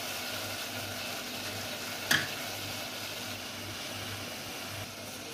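Water with cardamom and loose black tea leaves boiling in an aluminium saucepan on a gas burner, giving a steady bubbling hiss. A single sharp click sounds about two seconds in.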